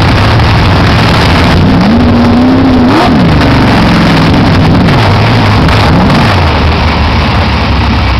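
Dirt modified race car's engine heard from inside the car, very loud, blipped up and down at low speed: a rise about two seconds in that peaks sharply around three seconds, then several smaller rises and falls.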